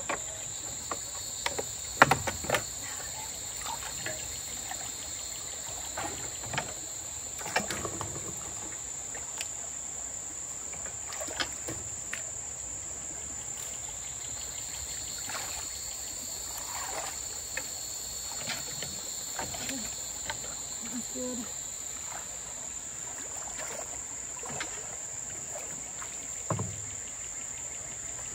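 A steady high-pitched insect drone, with a second, lower insect buzz that swells and fades twice. A few scattered knocks and thumps come through it, the loudest about two seconds in.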